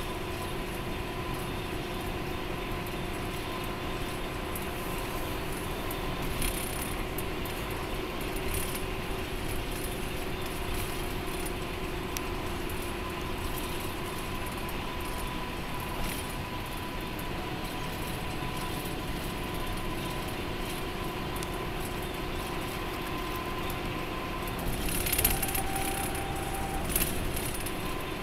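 Interior of an express bus cruising on the highway: a steady drone of engine and tyre-on-road noise with a constant whine running through it. A few brief rattles come from the cabin, the loudest bunch near the end.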